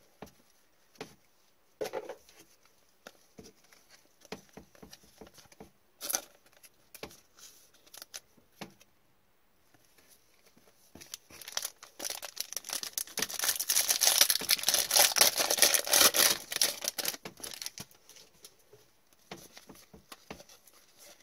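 A foil hockey card pack torn open and crinkled for about five seconds starting around twelve seconds in, the loudest sound. Before and after, light taps and clicks of trading cards being handled and shuffled.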